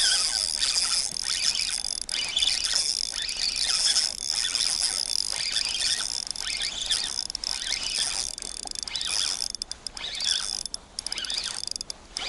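A Shimano Stradic spinning reel being cranked in short spells with a light ratcheting click, winding in line on a hooked asp, over a steady high chirring in the background.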